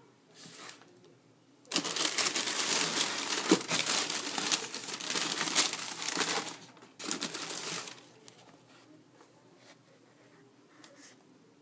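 Packaging wrapping crinkling and rustling as it is handled during a shoe unboxing: one long stretch of crinkling, then a shorter burst after a brief pause.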